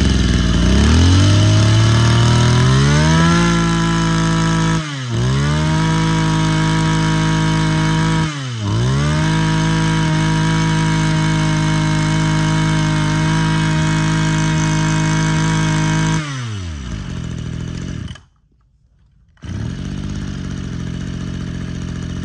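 Mitsubishi TL23 23cc two-stroke brush cutter engine revving up from a low speed to a high, steady scream. The revs dip sharply and come straight back twice. The revs then fall away and the sound dies out, and a steadier, quieter running sound resumes near the end.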